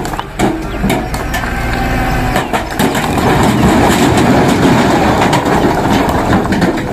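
Tipper dump truck with its bed raised and engine running while a load of large rocks slides out of the back and tumbles onto the ground. It starts with scattered knocks, then becomes a heavy, continuous rumbling clatter of rock from about two and a half seconds in.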